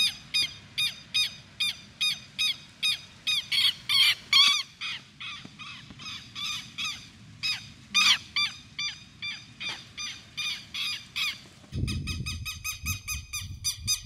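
Southern lapwings giving alarm calls: a fast series of repeated calls, about three a second, the birds defending their nest of eggs on the ground. Near the end a low rumble comes in and the calls quicken.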